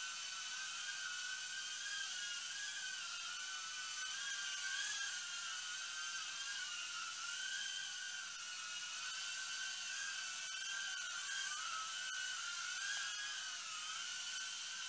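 FuryBee F36 mini quadcopter flying, its four small coreless motors giving a high whine whose pitch wobbles up and down continually as the motors change speed to hold it in the air.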